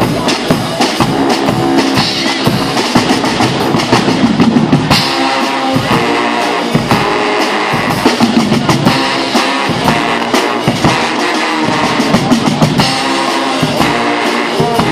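A Guggenmusik carnival band playing loudly: sousaphones, trombones, baritone horns, saxophones and trumpets together over steady beats from bass drums, snare drums and crashing cymbals.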